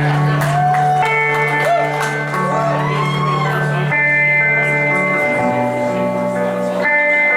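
Guitars playing the slow instrumental opening of a song, with sustained ringing chords over a held low note; the chord changes about five seconds in.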